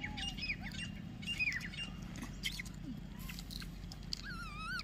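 A series of short falling bird chirps about a second in, with faint squeaky calls and scattered light clicks over a steady low background. Near the end comes a short wavering high-pitched call.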